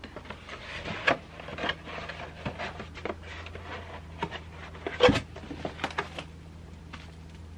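Cardboard boxes and their contents being handled and shifted by gloved hands: rustling, scraping and small knocks, with one sharp knock about five seconds in.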